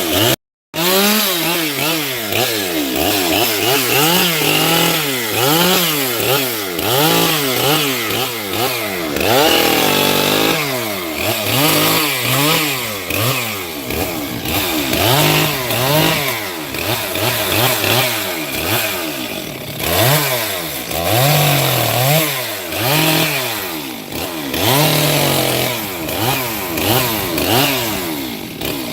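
Chainsaw engine running and revving up and down again and again, about once every second or so, as it cuts wood. There is a brief dropout just after the start.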